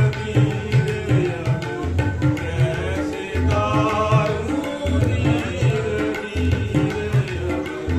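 Live Indian devotional music: a hand drum plays a steady rhythm of deep strokes, with a melody running over it.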